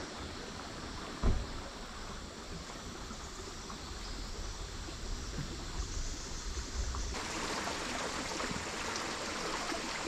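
Flowing river water, a steady rushing hiss, turning hissier about seven seconds in, with a single thump about a second in.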